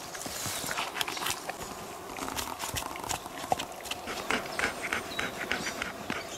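Dog panting, with irregular rustling and small snaps of ferns and forest-floor litter.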